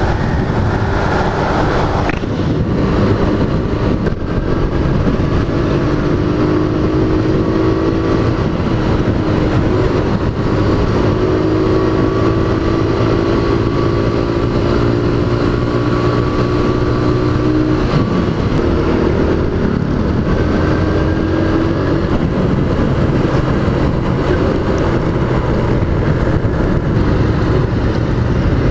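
Motorcycle engine running steadily at road speed under a rush of wind noise, its note holding with small rises and dips.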